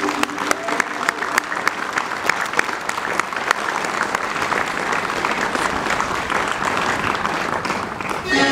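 Audience applauding: many hands clapping densely. The applause breaks off near the end as music starts up.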